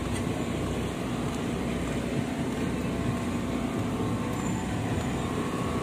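Steady background hum and noise of an outdoor market, with no distinct events.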